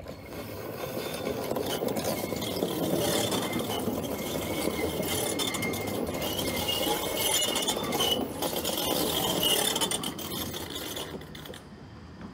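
Tram passing close by: steel wheels running on the rails with rattling and a thin high wheel squeal. It grows louder about a second in and drops away near the end.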